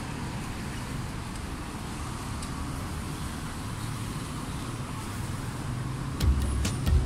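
Street traffic: a steady low rumble of passing vehicles, with a couple of heavier low thumps near the end.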